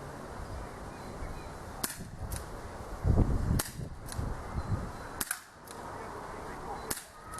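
A Dan Wesson .357 CO2 gas revolver firing BBs: four sharp shots, roughly one every second and a half. A fainter click follows close after two of them.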